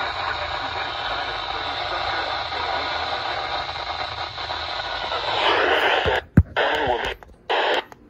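American Red Cross weather alert radio giving steady static hiss on a weather band channel. About five and a half seconds in the sound changes, with a thump and then a few short bursts of sound from the radio, each about half a second long.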